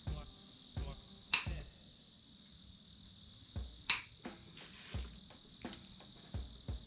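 Footsteps on a shop floor, a dull thud roughly every three-quarters of a second, with two sharp clicks, one about a second and a half in and one about four seconds in. A steady high-pitched tone, like a cricket's trill, runs underneath.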